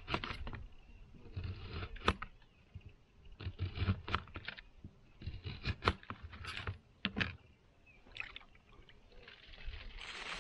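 Hands working a scored, salted peacock bass on a plastic plate set on a plastic kayak: irregular scrapes and sharp clicks and knocks of plate against hull. A burst of plastic-bag crinkling near the end.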